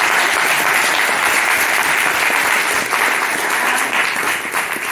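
Audience applauding, a dense clapping that starts to die down near the end.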